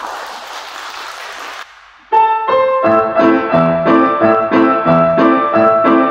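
Audience applause for about a second and a half. Then, about two seconds in, a grand piano played four-hands by two players begins a piece, its notes coming in a steady, even rhythm.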